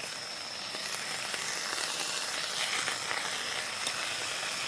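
A continuous even hiss with crickets trilling steadily on one high note behind it.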